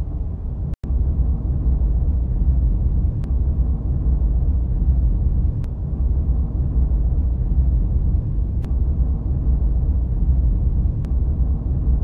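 Deep, steady rumbling drone, a horror-film sound-design bed, with faint clicks every two to three seconds. It cuts out for an instant under a second in.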